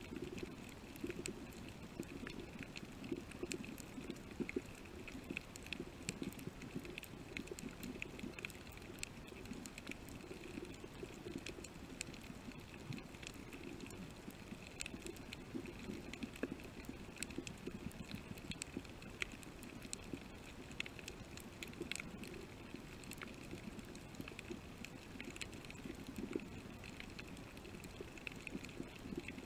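Underwater reef ambience picked up by a submerged camera: a steady low hum with frequent sharp clicks and crackles scattered throughout.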